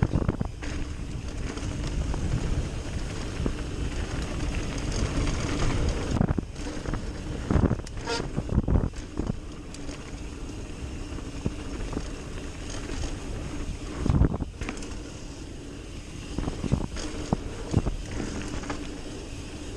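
Mountain bike descending a dirt forest trail, heard from a camera on the bike: tyres rolling and the bike rattling, with wind rushing over the microphone. A steady buzz runs under it, and a few sharp knocks come over bumps, the loudest about eight and fourteen seconds in.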